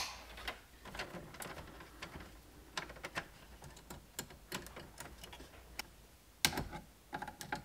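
Small irregular clicks and scrapes of hand tools working electrical wire: wire cutters cutting and stripping a red wire, then a screwdriver tightening it into a breaker terminal in a panel. The clicks come louder and closer together about six and a half seconds in.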